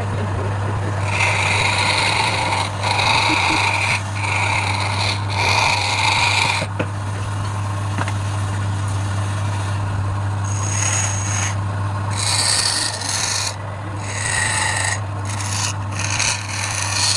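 A wood lathe runs with a steady low hum while a tool or abrasive is pressed against the spinning workpiece. It scrapes in about eight strokes of roughly a second each: four in a row near the start, a pause with only the motor, then four more.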